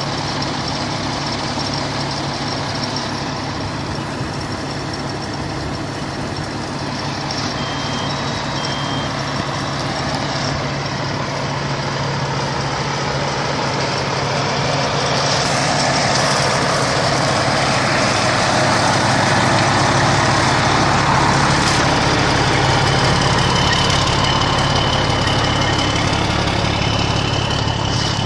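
Vehicle engines idling steadily with a low hum, growing louder in the second half, with a faint high tone near the end.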